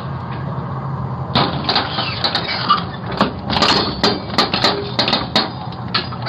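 A run of irregular clicks and knocks over a low steady hum, starting about a second and a half in, picked up by a doorbell camera's microphone.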